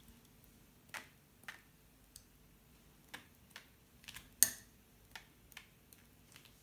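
A dozen or so light, irregularly spaced clicks and taps of painting tools handled on the desk, the loudest a little past halfway.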